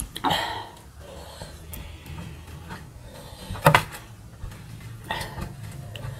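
Eating by hand at a table: food being mixed on brass plates, with a few sharp clinks of crockery, the loudest about three and a half seconds in, as a ceramic serving plate knocks against a brass eating plate.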